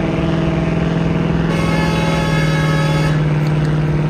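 A pulling vehicle's engine running loud and steady at an even pitch. Partway through it takes on a brighter, harsher edge for about a second and a half.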